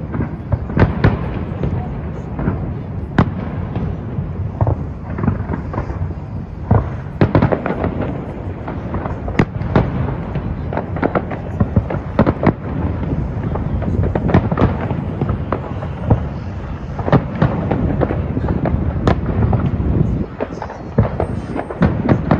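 Fireworks display: a rapid, irregular run of bangs and cracks, one after another over a continuous low rumble.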